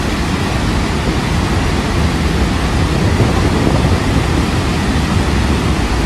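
Dettifoss waterfall's heavy fall of water: a loud, steady rushing noise with a deep rumble underneath.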